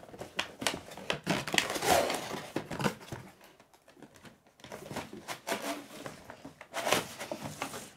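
Toy box packaging being opened by hand: cardboard and plastic crinkling and rustling, with many short sharp crackles and clicks, and a brief lull about halfway through.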